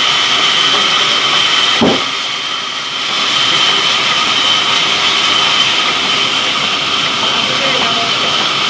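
Sawmill saw running with a loud, steady high-pitched whine. A sharp click comes a little under two seconds in, and the sound dips briefly before it returns to full level.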